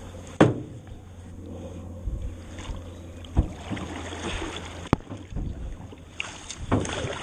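Canoe being paddled: paddle strokes in the water with several sharp knocks of the paddle against the canoe, the loudest about half a second in and others spread through the rest.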